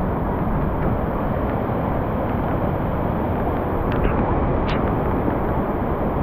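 Waterfall: a loud, steady, unbroken noise of falling water, with a couple of faint short high sounds about four to five seconds in.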